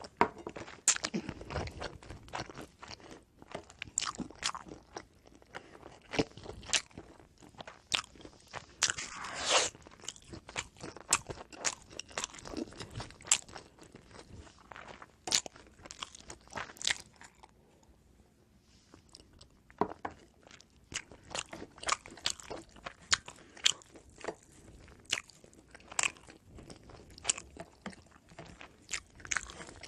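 Close-miked chewing and biting of oven-baked pizza bread, with many sharp crunches from the toasted crust and a brief pause just past halfway.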